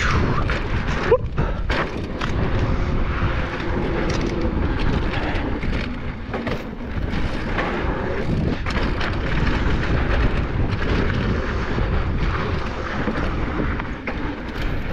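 Scott Ransom mountain bike riding fast down a hard-packed dirt trail: a steady rumble of wind on the microphone and tyre noise, with frequent rattles and knocks from the bike over bumps.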